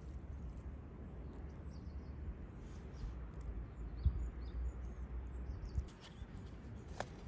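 Small birds chirping: short high calls scattered throughout, over a steady low outdoor rumble.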